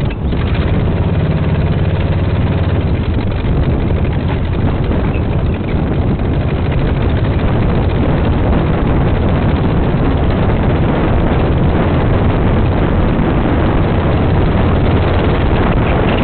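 Dune buggy engine running steadily as it drives over sand, mixed with wind rushing over the microphone.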